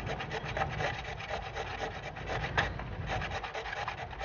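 PVC conduit pipe being cut by hand: a continuous rapid rasping of fine strokes, with a sharper click about two and a half seconds in.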